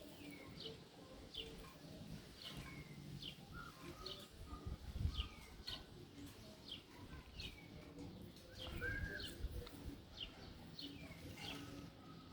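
A bird calling over and over, each call a short chirp sliding down in pitch, about one or two a second, with low rumbling and a dull bump about five seconds in.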